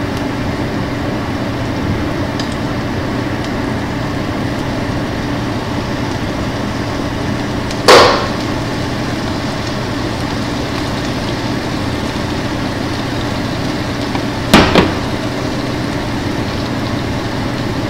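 Steady fan hum with two sharp knocks: one about eight seconds in and a quick double knock about fourteen and a half seconds in, as sauce bottles are handled and set down on the cooktop.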